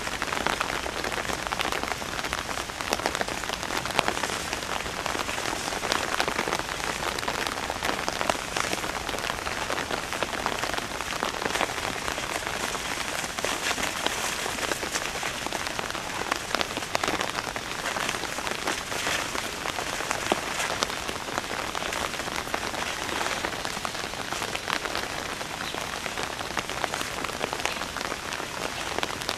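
Steady rain pattering: an even hiss of drops with many small crackling ticks all through.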